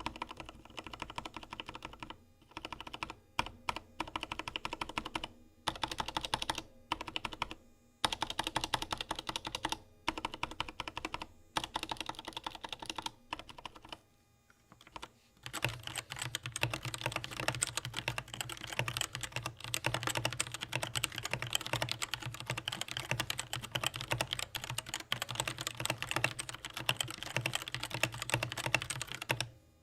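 Typing on a mechanical keyboard with TTC Black linear switches: short bursts of keystrokes with pauses, then continuous fast typing from about halfway through.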